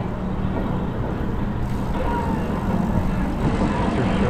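Steady wind rush and tyre hum from riding a bicycle in a large group of cyclists.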